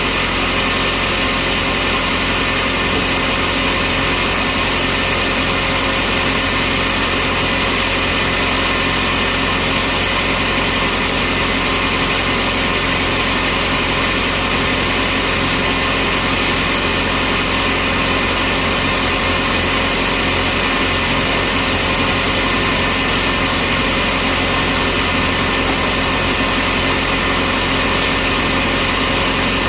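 Sawmill machinery running steadily: a continuous, unchanging mechanical drone with a steady hum.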